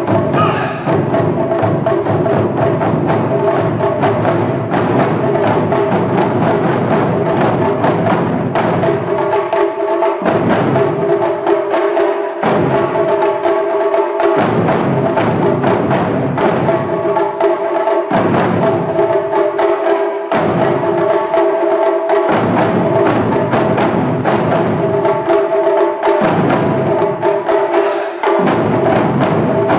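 Wadaiko ensemble drumming: taiko struck in fast, dense patterns, with sharp stick-like clicks and a steady pitched tone held over the drums. The deep drums drop out for a second or two several times in the second half, then come back in.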